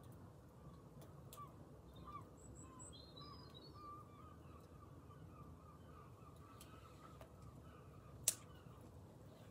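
Faint birdsong with a few soft crackles from a wood fire in a metal fire pit, and one sharp click near the end.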